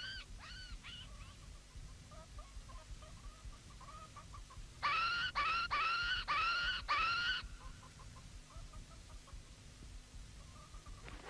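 A young monkey's high, shrill calls: a few short cries at the start, faint chattering in the middle, then five loud calls in a row about five seconds in.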